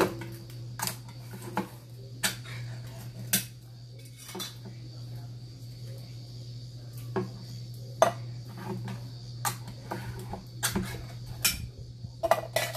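Metal food cans and their lids clinking and clicking against each other and the counter as cans of diced tomatoes are handled and opened: a dozen or so sharp, irregular clicks over a steady low hum.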